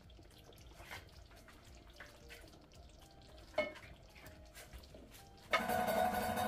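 Faint knocks and soft plops as pieces of fried beef and liver are lowered from a plastic slotted spoon into a pot of simmering tomato stew, with one sharper knock about halfway through. Background music comes in suddenly about five and a half seconds in.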